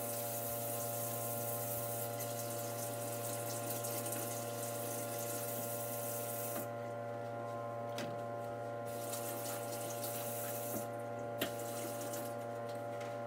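Kitchen faucet running into the sink as salmon is rinsed under it. The water stops about halfway, runs again for a couple of seconds, then stops well before the end, with a few light knocks in between.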